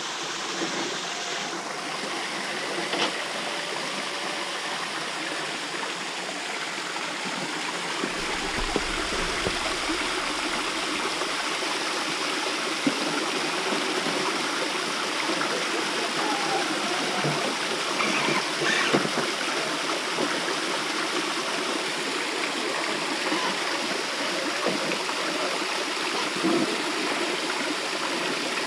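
Shallow rocky creek flowing over stones and a small waterfall: a steady rush of water.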